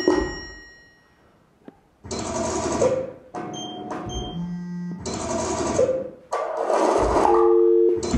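Electronic music: a burst of harsh noise cuts off, leaving ringing tones that fade within a second. After a moment of near quiet, more blocks of harsh noise start and stop abruptly, alternating with steady electronic beeps and held tones.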